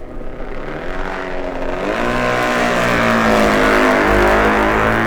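Matchless G45 parallel-twin racing motorcycle approaching at speed, its engine note rising and growing louder, then dropping in pitch as it passes near the end. The twin is sounding in good shape.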